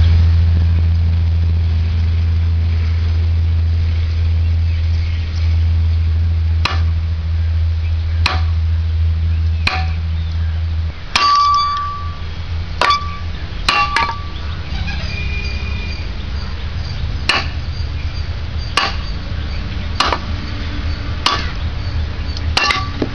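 A wooden stick striking a machete blade: about a dozen sharp clanks about one to one and a half seconds apart, some leaving a short metallic ring. A steady low hum runs under the first half and cuts off about halfway.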